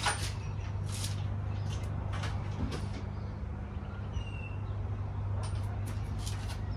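Outdoor background: a steady low hum with scattered short, sharp ticks and one brief high chirp about four seconds in.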